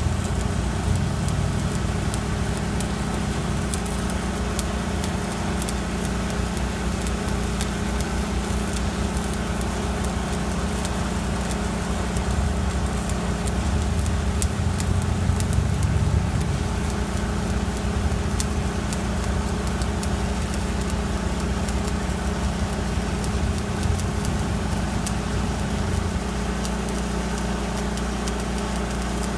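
An engine running steadily, with a constant low hum and scattered light crackling clicks over it.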